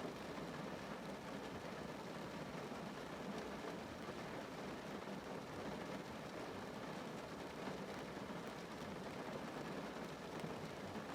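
Rain falling on a car's roof and windows, heard from inside the cabin: a steady hiss of drops with faint ticks.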